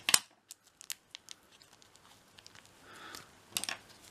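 A single sharp snip of scissors through clear tape, then a few light ticks and the crinkle of the tape-covered card being handled.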